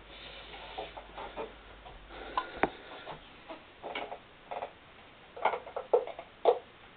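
Handling noise from a homemade bench grinder in a wooden box: irregular knocks and clicks as the box is shifted and its power cord is moved. A faint low hum stops about two and a half seconds in, followed by a sharp click, and a cluster of knocks comes near the end.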